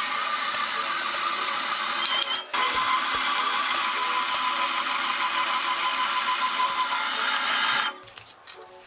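Homemade metal band saw running, its blade cutting dry through steel bar stock with a steady mechanical whir. A steady whine runs through the middle, and the sound breaks briefly about two and a half seconds in. It drops away sharply near the end as the piece is cut off.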